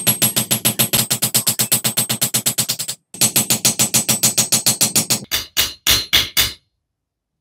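Short rhythmic percussive music: fast, even beats about eight a second, a brief break about three seconds in, then five slower beats before it stops.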